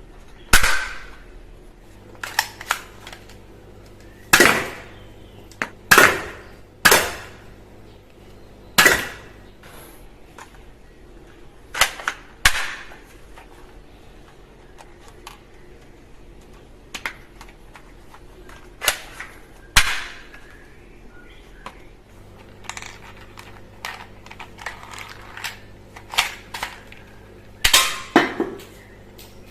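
Toy guns being fired and worked: a string of sharp plastic snaps and clacks at irregular intervals, with quieter handling clatter between.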